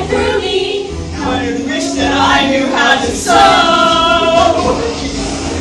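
Pop song with singing over a steady bass beat, played loud; a long, wavering held note comes about three and a half seconds in.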